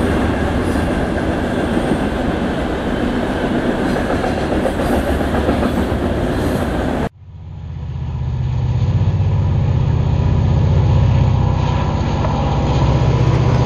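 HO-scale model freight train running on the layout: a string of model hopper cars rolling past on the track with a dense, steady rattle. About halfway through the sound cuts off abruptly and gives way to model diesel locomotives approaching, with a steady low hum that grows louder.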